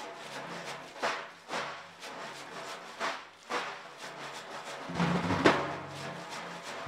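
Two dafs, large Persian frame drums, played together by hand in a steady rhythm of deep strokes and sharper slaps. About five seconds in, the drumming grows louder and fuller.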